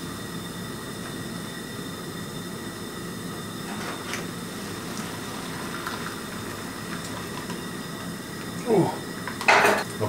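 Coleman camp stove burner turned up high, running with a steady rush, while hot water is poured from the pot into a foil meal pouch. Near the end come a short falling sound and two loud, brief bursts of noise.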